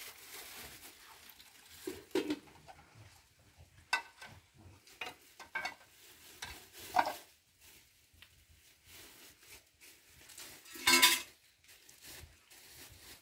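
Metal pots, bowls and a cup clinking and knocking as they are handled, over the faint crackle of a small wood fire, with one louder, brief clatter about eleven seconds in.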